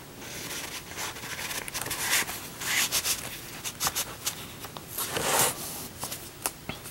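Paper and cardstock rustling and sliding as the pages and pockets of a handmade mini album are handled and turned, with a few light clicks near the end.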